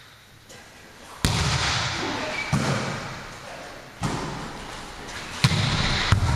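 A volleyball being struck during a rally: about five sharp slaps of hands and forearms on the ball, roughly a second apart, each with a short echo in the hall.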